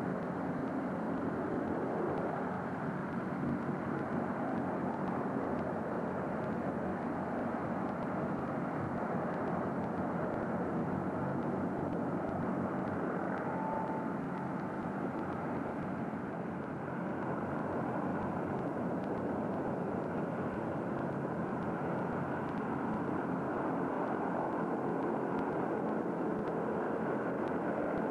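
Hoverspeed SR.N4 hovercraft running, its gas turbines and propellers making a steady, even rushing noise.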